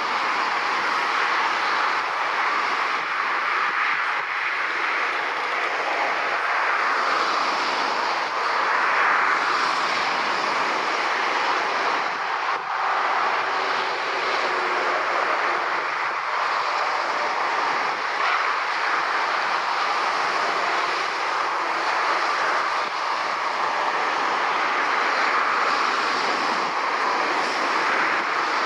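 Steady rushing roar of airliner jet engines at taxi power, even and unbroken.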